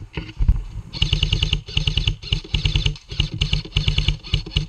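Airsoft electric rifle firing on full-auto in repeated short bursts, a fast, even mechanical rattle that starts about a second in.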